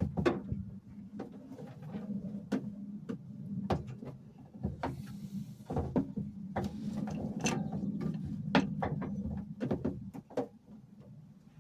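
Irregular clicks and knocks of hand work on fuel pipe and fittings, over a steady low hum, with a brief hiss about five seconds in.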